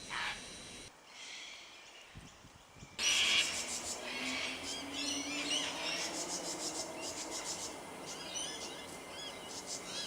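Wild birds calling. About three seconds in, it switches abruptly to a busier chorus of many short, high chirps and twitters from several birds at once.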